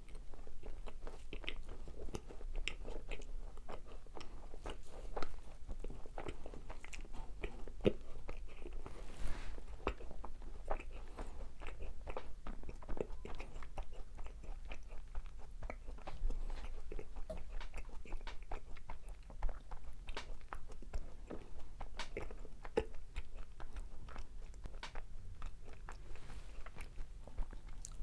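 Close-miked eating of macarons: repeated biting into the crisp shells, with crunching and chewing throughout.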